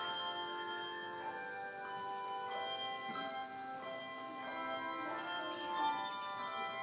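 Handbell choir playing a tune: handbells struck one after another, each note ringing on and overlapping the next.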